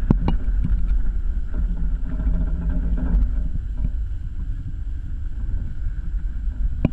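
Wind buffeting a GoPro Hero 3 camera mounted high in a sailboat's rigging, a steady low rumble with a few sharp clicks near the start and one at the end.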